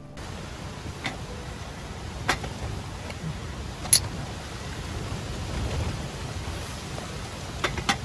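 Strong wind blowing and buffeting the microphone, with a few sharp clicks scattered through, the loudest about four seconds in.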